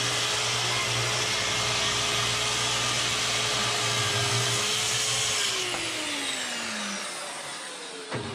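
Festool TS 75 EQ plunge track saw running steadily at speed, then switched off about five and a half seconds in, its whine falling as the blade spins down. A couple of clicks near the end.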